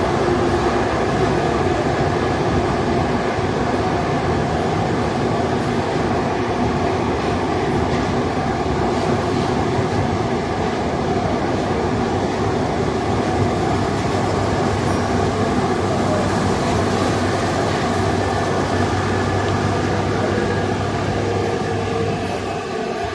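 Santiago Metro AS-02 train heard from inside the car while running: steady rolling and running noise with a hum of a few steady tones, getting a little quieter near the end.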